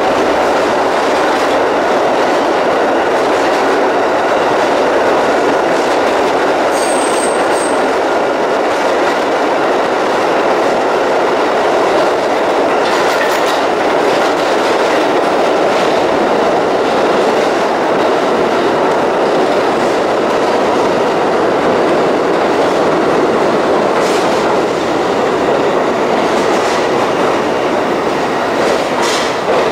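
New York City subway train (the No. 6 Lexington Avenue local) running through a tunnel, heard from inside the car: a loud, steady rumble of wheels on rail. A brief high wheel squeal comes about seven seconds in, and short squeals follow near the end as the train runs into a station.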